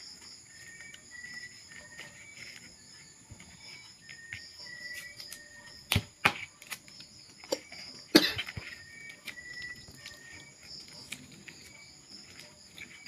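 Insects chirping steadily in the background, with a few sharp clicks and knocks about halfway through, the loudest a little past the middle, as electrical wires are handled and twisted together.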